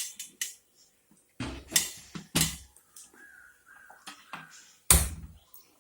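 Clinks and knocks of metal cookware as a steamer pot is handled and set on a gas stove, with a few light clicks followed by three heavier knocks, the last about five seconds in.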